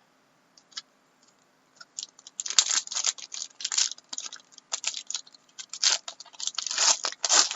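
Card packaging being opened by hand: irregular crinkling, rustling and tearing of wrapper and box, starting about two seconds in and running on thickly.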